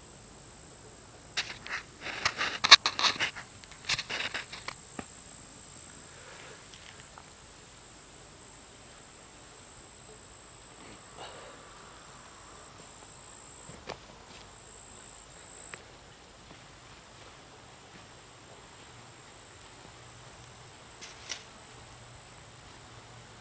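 A burst of crackling rustles and clicks starting about a second and a half in and lasting about three seconds, then a faint steady high-pitched whine with a few soft clicks.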